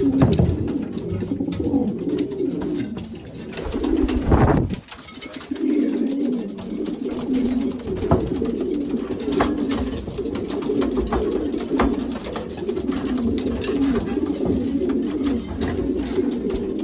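Many racing pigeons cooing together in a loft, a dense, continuous layer of overlapping coos from cockbirds with the hens let in among them. A brief louder noise about four seconds in is followed by a short lull before the cooing picks up again.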